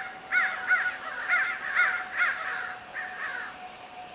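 White-tailed kite calling: a quick series of short, clear whistled notes, each rising and falling, two or three a second, fading out near the end.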